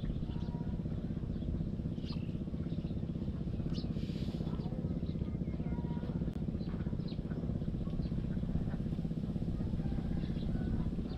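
A small engine running steadily at an even speed, with birds chirping now and then over it.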